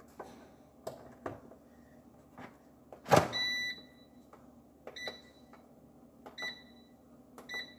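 A loud knock about three seconds in as the air fryer's plug goes into the socket, followed by a longer beep from its digital control panel, then three short beeps as its touch buttons are pressed to set the temperature. Light clicks and taps of handling come before it.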